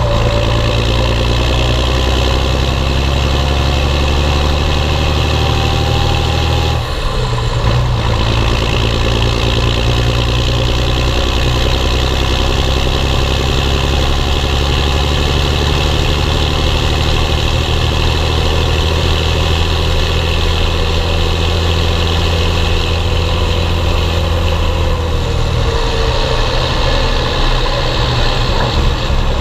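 Belarus 1221.3 tractor's six-cylinder diesel engine running steadily under load, its note dipping briefly and changing about seven seconds in.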